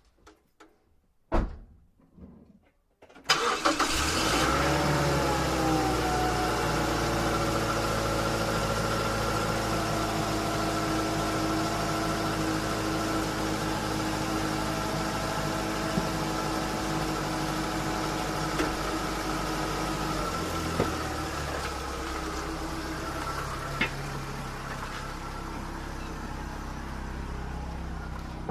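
A thump and small knocks, then the Mazda MPV's engine is cranked and catches about three seconds in. Its speed dips and settles, and it then idles steadily, with the low note of the idle changing about twenty seconds in.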